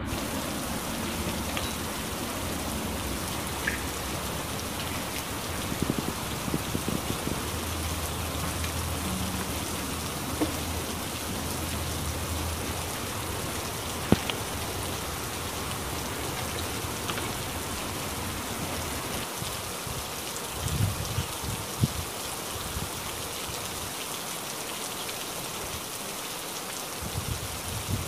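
Steady rain falling on leaves and ground, with scattered sharper drip ticks and a few brief low rumbles.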